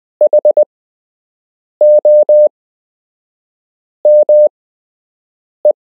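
Morse code practice letters sent on a key as a steady beep: four separate letters about two seconds apart, the first made of four quick dots, the middle two of longer dashes, and the last a single short dot.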